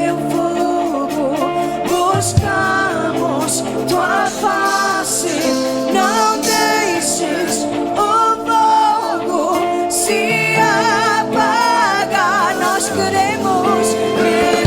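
Live church worship music: a singer holding and ornamenting long wordless notes with vibrato over sustained keyboard chords, a spontaneous worship passage.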